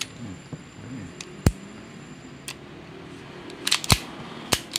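Chrome Beretta M92 airsoft pistol's hammer and action being worked by hand: sharp metallic clicks, the loudest about one and a half seconds in, then a faint one and a quick cluster of clicks near the end.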